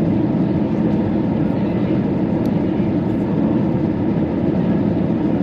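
Cabin noise of an Airbus A319 descending to land: a steady, even drone of engines and rushing air.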